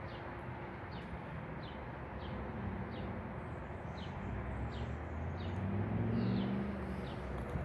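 A bird calling over and over, short falling chirps about twice a second. A low rumble swells and fades in the second half: a passing vehicle.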